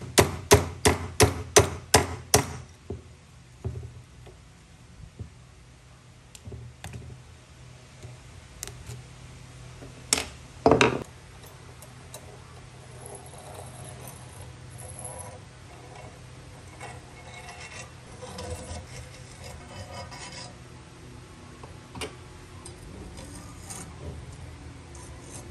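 A hammer tapping a punch about eight times in quick succession to drive the retaining peg out of a katana's wrapped handle. About ten seconds in come two more loud knocks, then softer scraping and light metal clinks as the guard and spacers are worked off the tang.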